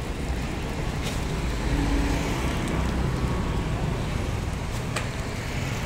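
Steady street traffic noise, a low rumble of passing vehicles, with a couple of brief clicks.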